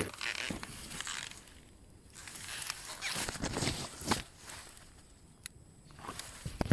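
Footsteps and rustling through leafy vegetation, in uneven spells, with one sharp click about five and a half seconds in.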